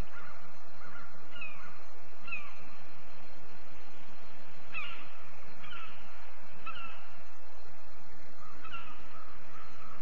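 Eagle calls: about six short, high-pitched falling notes, spaced a second or more apart, over a steady background hiss.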